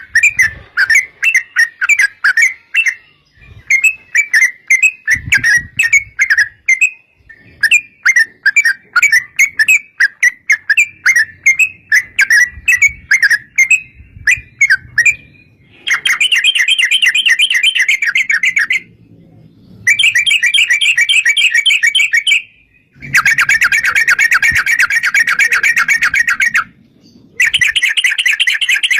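Yellow-vented bulbul (trucukan) song: for about half the time a lively run of quick, separate chirps, then long rapid rattling trills lasting several seconds each, broken by short pauses.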